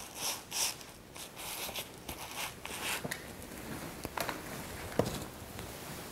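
Seam thread on a car seat cover being cut with a razor knife and pulled apart by hand, with the fabric rustling. It comes as a series of short snips and clicks, the sharpest about a second in and near the five-second mark.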